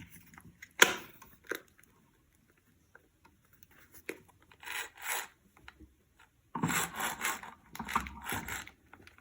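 Plastic parts of a toy RC car being handled and fitted together: a sharp click about a second in, then several short bouts of scraping and rubbing.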